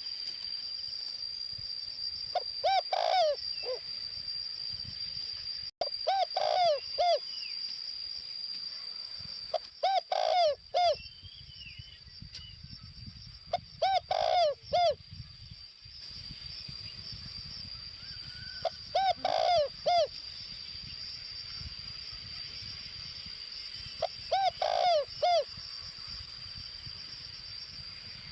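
Decoy spotted dove cooing: six separate phrases of several quick notes each, one about every four to five seconds, offered as a well-formed lure call. A steady high whine runs underneath.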